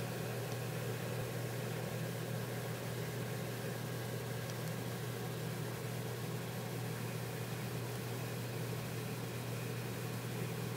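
A steady low hum under a constant hiss, with no change in level.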